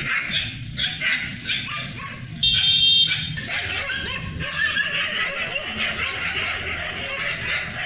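Dogs fighting: continuous barking and yelping, with one loud, high-pitched yelp about two and a half seconds in.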